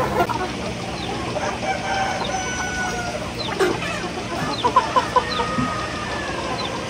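A flock of chickens clucking and calling, with a rooster crowing. A few sharp knocks sound about five seconds in.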